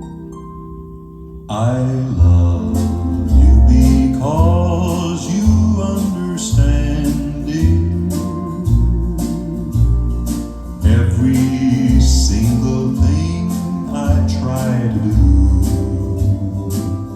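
Recorded music played back over a hi-fi stereo: a soft plucked-string intro, then about a second and a half in a full band comes in with a deep bass line, a steady beat and singing.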